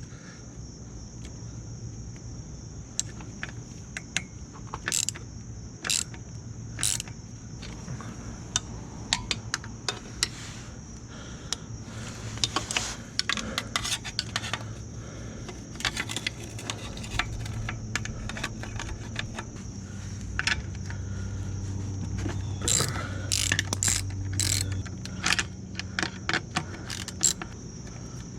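Socket ratchet clicking in short runs while the 13 mm muffler bolts are worked loose, with scattered clinks of metal tools and parts.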